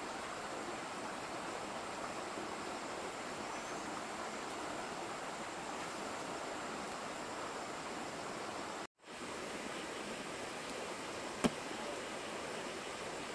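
Steady, even rushing outdoor background noise, broken by a split-second dropout about nine seconds in, with one sharp click a couple of seconds later.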